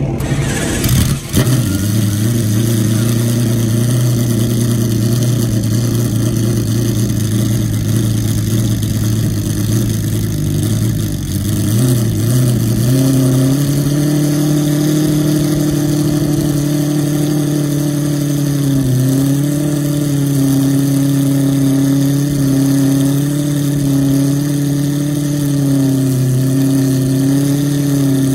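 McLaren F1 GTR's BMW V12 engine idling steadily with the car stationary. Its idle steps up slightly about halfway through and wavers a little in pitch after that.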